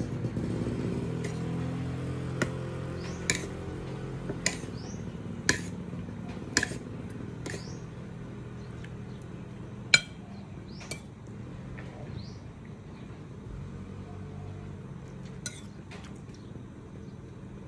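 Metal spoon clinking and scraping on a ceramic plate and bowl while eating: sharp clinks about a second apart, sparser later on, the loudest about ten seconds in.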